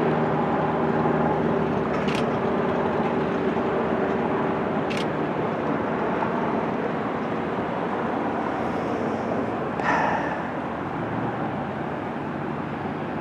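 Jet engines of a FedEx twin-engine airliner landing and rolling out along the runway: a steady jet engine noise with a low hum that slowly fades as the aircraft moves away. Two faint sharp ticks come about two and five seconds in, and a brief louder noise about ten seconds in.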